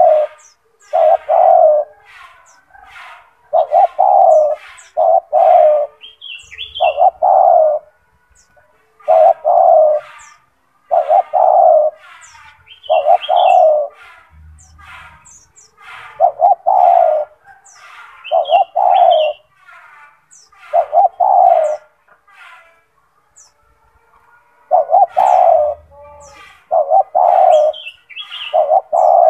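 Spotted dove (tekukur) cooing over and over in its full, loud song: short phrases of several deep coos repeat every few seconds, with a longer pause about two-thirds of the way through.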